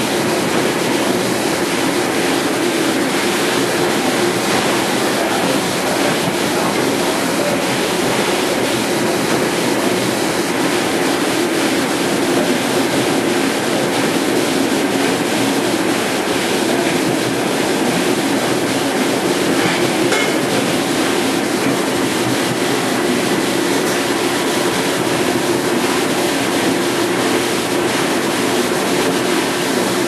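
1971 Hobart AM commercial dishwasher running mid-cycle: the wash pump's steady roar mixed with water rushing and spraying from the wash arms inside the stainless chamber.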